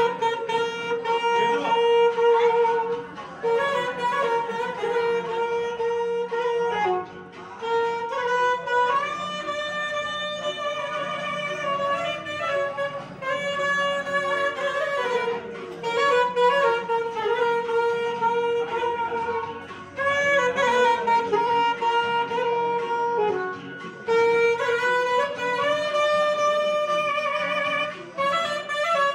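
Saxophone playing a slow, singing melody in phrases, with long held and bending notes and brief breath pauses between phrases, over a steady low hum.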